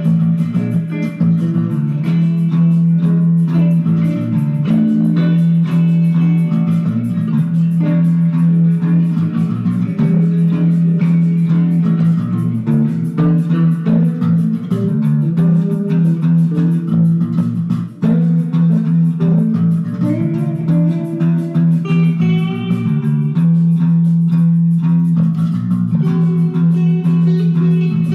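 Instrumental jam on electric guitar and electric bass: the bass holds a steady low note while the guitar plays melodic lines above it, with a brief drop in level about eighteen seconds in.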